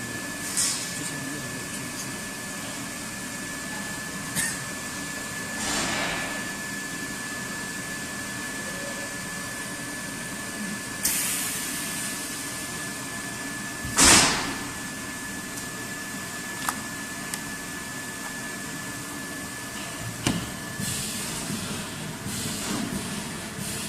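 High-frequency plastic welding machine running through a trial weld of a PU cleat: a steady machine hum with a thin high tone, broken by several clunks and air hisses from its press, the loudest a sharp burst about 14 seconds in.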